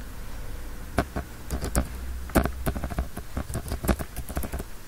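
Typing on a computer keyboard: a run of irregular, quick keystroke clicks.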